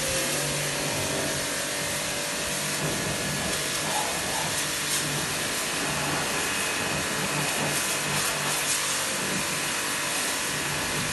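Eurofine electric high-pressure washer running: its 2 HP motor gives a steady hum under the hiss of the high-pressure water jet spraying onto a car's tyre, bodywork and the concrete floor.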